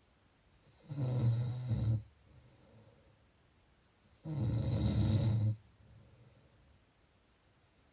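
Snoring: two long, low snores about three and a half seconds apart, each lasting a little over a second, with faint breathing between them.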